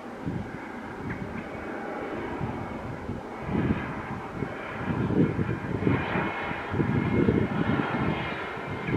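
Jet engines of an Airbus A321neo on final approach, growing louder as the aircraft draws near. A deep, uneven rumble builds from about a third of the way in, with a faint steady whine above it.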